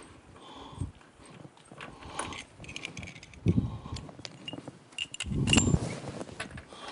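Light metallic clicks and taps of a lawnmower spark plug being handled: the old plug taken out and a new one threaded into the engine by hand. There are two dull low thumps, about three and a half and five and a half seconds in.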